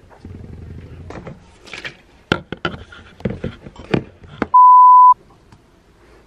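A camera being handled and set in place, with a series of sharp knocks and clicks, followed by a single steady high beep for about half a second. All other sound cuts out under the beep, so it is an edited-in bleep tone.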